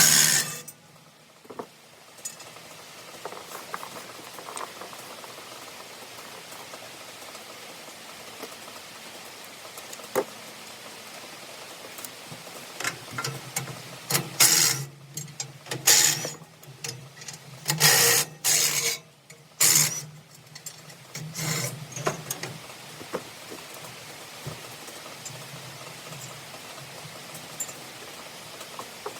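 Fast-forwarded sound of hand-tool work on a round baler's pickup: a run of loud clanks and scrapes about halfway through, over a steady hiss.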